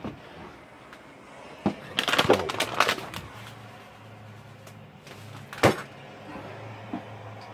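Knocks and a short clatter of objects being handled, with one sharp knock a little past halfway. A low steady hum comes in a few seconds in and keeps going.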